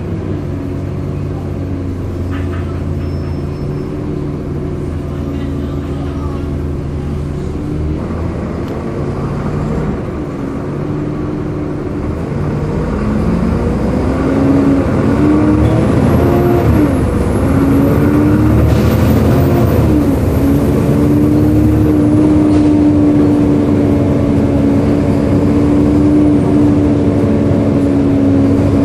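Volvo B7LA diesel bus engine with its loud, hoover-like cooling fan, heard on board. It runs steadily at first. About halfway through it grows louder and its pitch rises and falls several times, then it settles into a strong steady hum.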